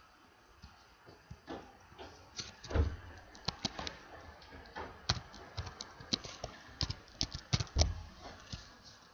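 Computer keyboard typing: irregular keystrokes, with two heavier knocks among them about three seconds in and near the end.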